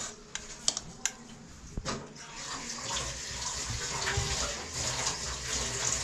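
Metal serving spoon clinking and scraping against a steel pot as biryani rice is scooped out: a few sharp clinks in the first two seconds, then a steady rushing noise like running water.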